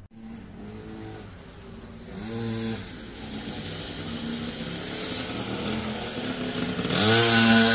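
Small pit bike's engine revving in a few short rises and falls of pitch, then getting much louder about seven seconds in and holding a steady note.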